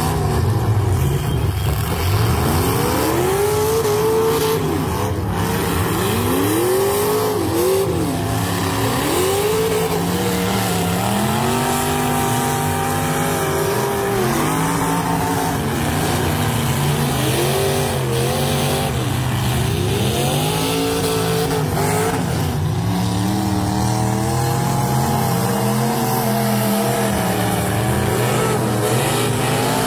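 Several demolition-derby cars' engines revving hard, their pitch rising and falling over and over as the cars spin and ram each other in the dirt.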